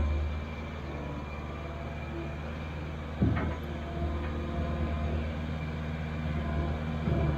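New Holland tracked skid steer's diesel engine running steadily under load, with a single sharp clank about three seconds in and the engine revving up near the end.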